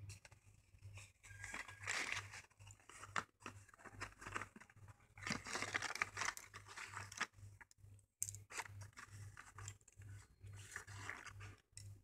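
Cardboard box of slate pencils being torn open and handled: bursts of card tearing and crinkling, in bursts of a second or two.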